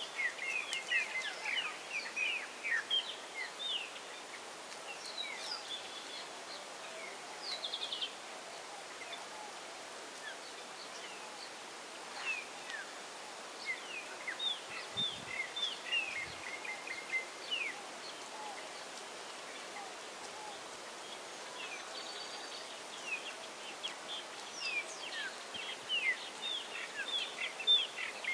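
Small birds chirping in many short, quick calls, busiest in the first few seconds and again near the end, over a steady outdoor hiss.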